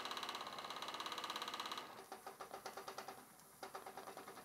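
Wilesco D20 model stationary steam engine running under steam, beating out a fast, even rhythm. It drops quieter about two seconds in.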